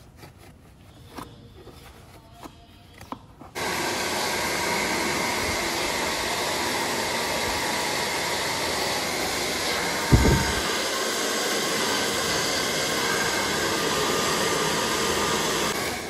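A few soft handling clicks, then a hair dryer switches on and blows steadily into a motorcycle's pleated air filter to clean it out. There is one brief low thump a little past the middle.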